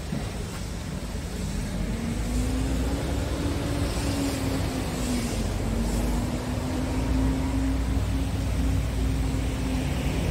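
A vehicle engine running steadily, its hum coming in about two seconds in and dipping briefly midway, over a low rumble of wind on the microphone.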